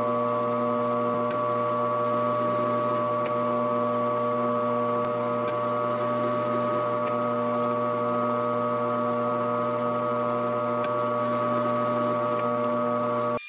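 Grizzly G0750G metal lathe running steadily under power during a single-point threading pass: an even motor and gear whine with a few faint light ticks. It cuts off suddenly near the end.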